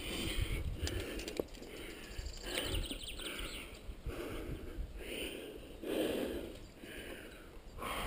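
A rock climber's heavy breathing while making hard moves, a breath roughly every second, close to the helmet microphone.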